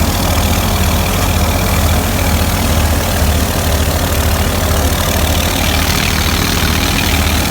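Engine of a wheat thresher running steadily: a low, pulsing throb under a continuous rushing noise.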